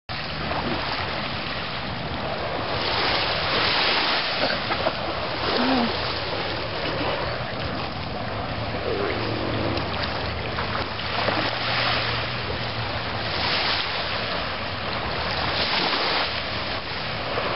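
Surf washing onto the beach, swelling every few seconds, with wind blowing across the microphone.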